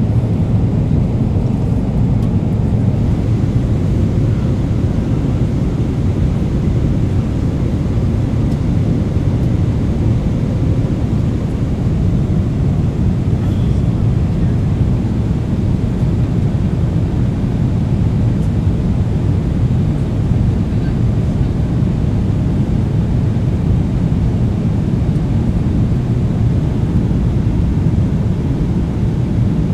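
Steady low rumble of a Boeing 777-300ER's cabin in flight: engine and airflow noise heard from inside the economy cabin, unchanging throughout.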